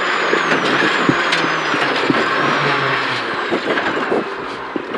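Renault Clio RS F2014 rally car heard from inside the cabin, coasting down after the stage finish: engine and road noise with a thin high whine that falls steadily in pitch, the whole getting quieter in the last second or so.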